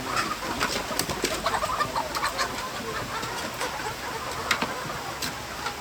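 A flock of chickens clucking in a poultry pen, many short calls overlapping, busiest in the first half, with scattered sharp taps.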